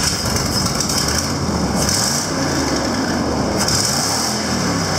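Ford Super Duty pickup's gasoline engine running just after it caught, its speed rising and falling a little. The engine has just been started on a fresh set of ignition coils and spark plugs.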